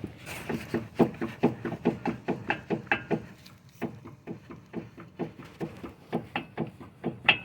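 Repeated clunking knocks, about three a second and uneven in strength, from a worn electric power steering rack and pinion on a 2008 Toyota RAV4 as the wheel and tie rod are rocked back and forth. The knocking is the play that marks the rack as defective.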